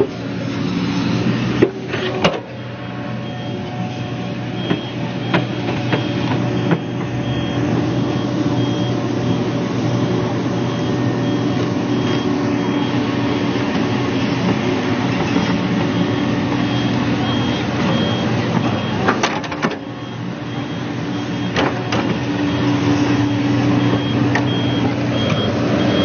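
New Holland E215 crawler excavator's diesel engine running under load as the machine tracks through mud, with its high-pitched travel alarm beeping at an even pace through most of it. A few sharp knocks sound about two seconds in and again near two-thirds through, where the engine dips briefly before picking up again.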